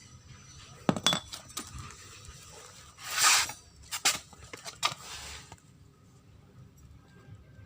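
Metal tools and CVT parts of a scooter clinking and knocking while being taken apart. There are a handful of sharp hits, with a louder half-second rattle about three seconds in.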